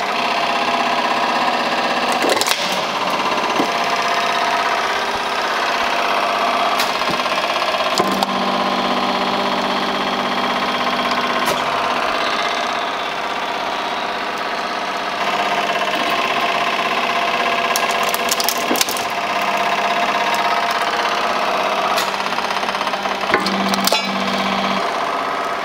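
A press running with a steady mechanical drone while the plastic housing of a GSM alarm control panel is crushed under it, with sharp cracks and snaps scattered throughout.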